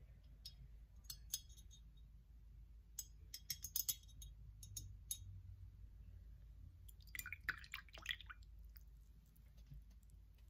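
Faint scattered clicks and small clinks as a paintbrush and a painted dragon figure are handled, with a cluster of quick clicks about three to four seconds in and a brief scratchy scrape about seven seconds in.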